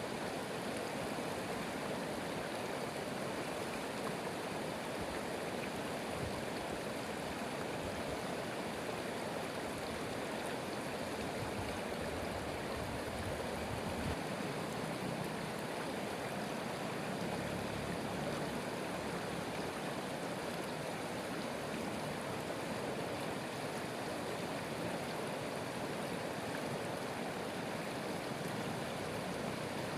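Stream water running steadily, an even rushing with no change.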